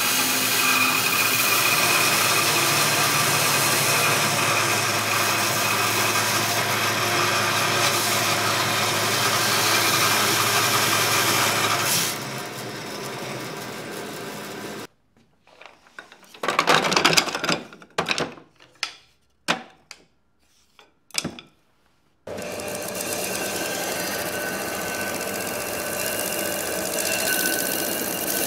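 Bandsaw cutting the corner off a hardwood case, the motor's steady hum under the noise of the cut for about twelve seconds, then running lighter after the cut. A gap of near silence with several short bursts follows, and then a disc sander runs steadily with the wood pressed against it.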